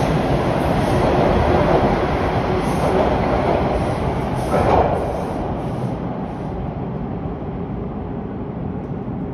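Bombardier T1 subway train pulling out of the station, its wheels and motors rumbling on the rails. The sound swells briefly about four and a half seconds in, then fades as the train leaves, giving way to a lower steady hum.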